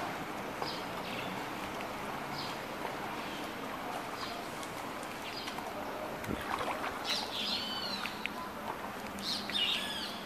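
Birds chirping over a steady rushing hiss. Short chirps come about once a second at first, then louder curved whistled calls later and again near the end.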